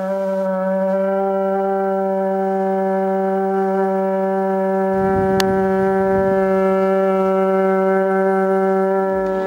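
Moche-style ceramic ceremonial trumpet blown in one long, steady low note with strong overtones, held without a break.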